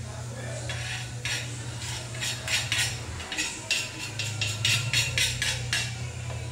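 A spoon scraping and knocking against a wooden chopping board to push chopped ingredients into a frying pan: a quick run of clicks and scrapes. A steady low hum runs underneath.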